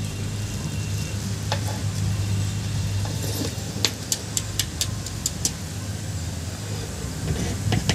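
Long metal ladle turning and mixing cooked dum biryani rice in a large aluminium pot. A run of sharp clinks of the ladle against the pot comes about halfway through, over a steady low hum.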